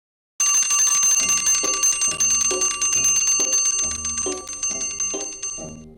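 Doorbell ringing without a break, a fast rattle of strikes with a steady high ring, held for about five seconds from about half a second in and stopping near the end. Background music plays underneath.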